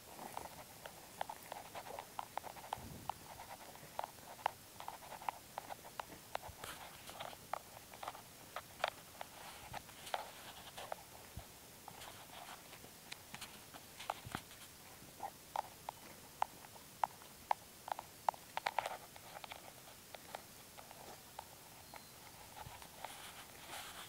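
Irregular crackling and rustling of a person walking through grass, footsteps and stems brushing past, picked up close by a handheld phone.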